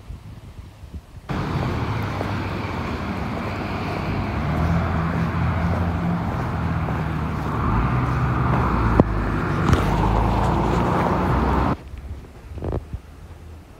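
Motor vehicle engine running with a steady wash of road noise. It starts abruptly about a second in and cuts off suddenly near the end.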